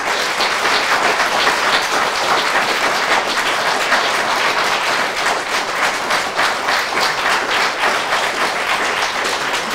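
A room-sized audience applauding steadily, a dense continuous patter of many people's hand claps.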